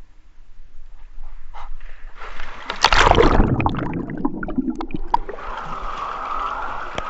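A person plunged backwards into a baptistry tank: a sudden loud splash about three seconds in, a muffled rush of water while he is under, then water streaming and sloshing as he is lifted back up.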